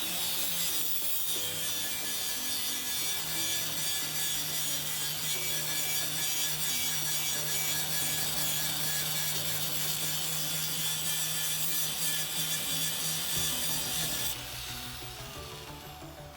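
A power tool working sheet metal: a loud, steady, harsh hiss over a low motor hum that cuts off about 14 seconds in. Background music runs underneath.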